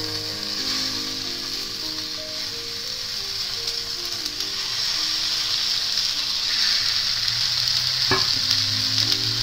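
Chicken seekh kebabs on wooden skewers sizzling in hot oil as they are laid one by one on a flat pan, the sizzle growing a little louder as more go in. One sharp tap a little after eight seconds in.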